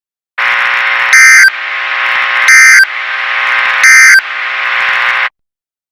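Emergency Alert System end-of-message signal: three short bursts of screeching two-tone digital data about a second and a half apart, over a continuous harsh buzz. The buzz cuts off suddenly just after the third burst, marking the end of the alert.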